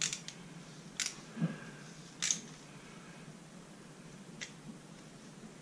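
Meat injector being worked into a raw turkey: a few short, sharp clicks from the plunger and needle, spaced irregularly, with a faint squish from the meat.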